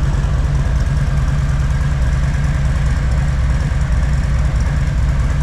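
Harley-Davidson Street Bob's Milwaukee-Eight 114 V-twin idling steadily through its stock exhaust.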